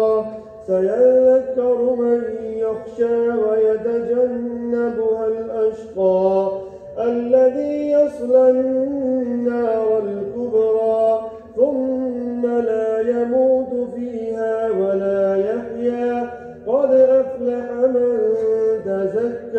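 A man reciting the Quran aloud in a melodic chant: one voice holding and bending long notes, phrase after phrase, with brief pauses for breath between phrases.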